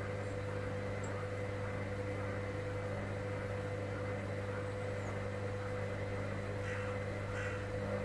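Hoover Dynamic Next front-loading washing machine on a hot wash, its drum turning and tumbling wet laundry with a steady motor hum. Near the end a series of short, harsh sounds begins, about one every 0.7 seconds.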